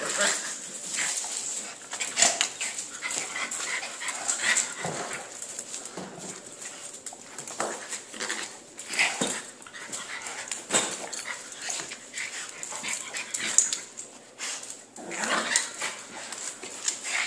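A golden retriever and a small black dog play-fighting, growling and snarling with short yips in irregular bursts.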